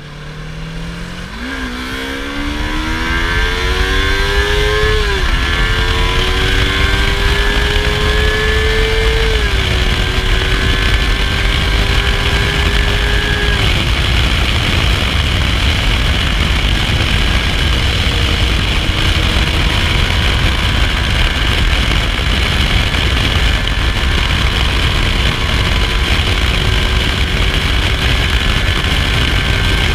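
Yamaha YZF-R25's parallel-twin engine on its stock exhaust, accelerating: the engine note climbs, drops at an upshift about five seconds in and again near ten seconds, then holds steady. From about fourteen seconds the engine note fades under a loud steady rushing noise as the bike cruises.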